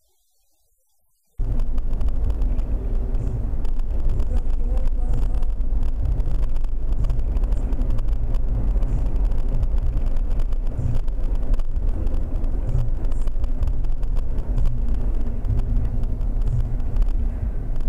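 Near silence, then about a second and a half in, a dashcam recording of a moving car cuts in: a steady low rumble of engine and road noise heard inside the car.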